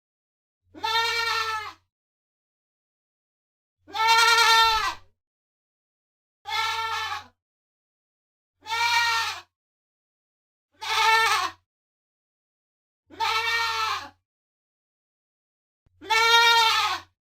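Young goat (kid) bleating: seven separate wavering bleats of about a second each, a couple of seconds apart, with silence between them.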